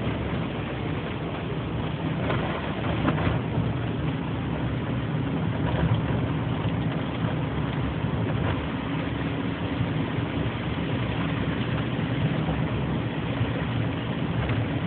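Car engine and road noise heard from inside the cabin while driving: a steady low hum.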